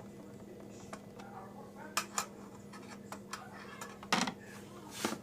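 Light clicks and knocks of computer parts and screws being handled and fitted during a PC build: two sharp clicks about two seconds in, a louder clatter just after four seconds and another near the end, over a faint steady hum.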